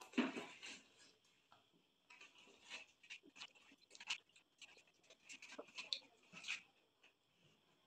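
Metal spoons scraping and scooping through soft watermelon flesh, with wet chewing and slurping, in quick irregular bursts; the loudest is a wet scoop or bite near the start.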